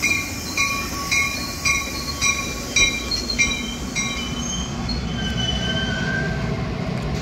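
Metra bi-level commuter train pulling into the station: its bell rings about twice a second for the first four seconds. Then its brakes squeal in a few wavering high tones as it slows, over a low rumble of the cars rolling past.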